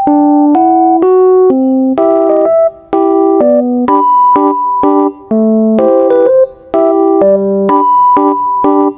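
Background music: a piano-style keyboard playing a light melody over chords, with new notes struck about every half second and brief pauses between phrases.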